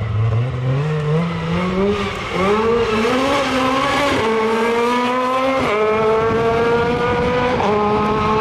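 Opel Adam rally car's four-cylinder engine accelerating hard along a stage. The revs climb steadily in each gear, broken by several quick upshifts where the pitch drops and then climbs again.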